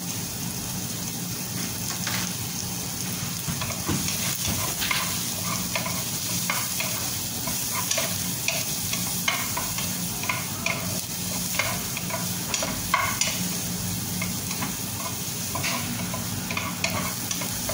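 Chopped onion and ginger sizzling in hot oil in a frying pan while a wooden spatula stirs them. The spatula scrapes and knocks lightly against the pan many times over the steady frying hiss.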